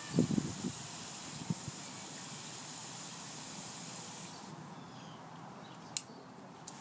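Water spraying with a steady hiss that stops about four seconds in, with a few short low knocks near the start and one sharp click near the end.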